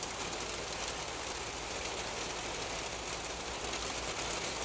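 Steady rain falling, a constant hiss of drops with a low rumble underneath.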